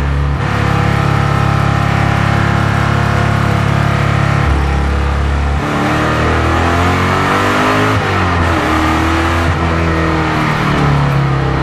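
Race-prepared Chevrolet Camaro's V8 engine at high revs heard from inside the cockpit. It holds a steady note for the first half, then its pitch wavers, rising and falling as the revs change, before steadying again near the end.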